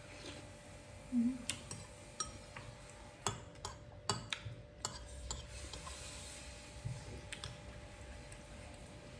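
A spoon clinking and scraping against a bowl, with scattered light clicks that bunch together about halfway through.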